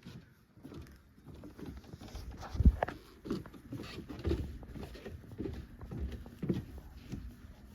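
Irregular knocks and clatter of metal housing parts and bolts being handled and fitted together, with one sharper knock about two and a half seconds in.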